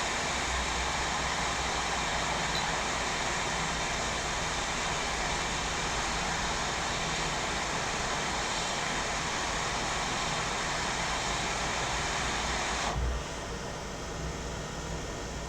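Hot air rework station blowing a steady rush of air onto a laptop motherboard to reflow solder; it shuts off suddenly near the end.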